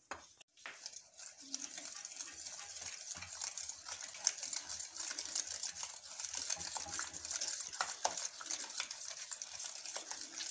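Eggs and sugar being beaten by hand in a ceramic bowl with a metal utensil. The utensil scrapes and taps rapidly and continuously against the bowl, with the wet swish of the mixture, starting about a second in.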